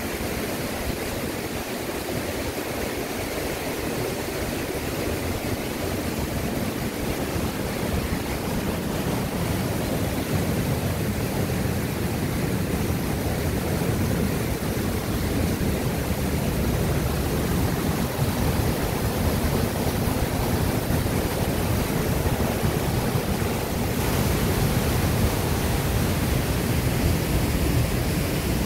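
Mountain stream rushing over a rocky cascade and small waterfall: a steady white-water noise that grows fuller and a little louder about a third of the way in.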